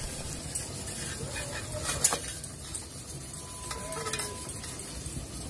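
Kerosene wick stove just lit, its flame burning with a steady low hiss, with a faint metallic click about two seconds in.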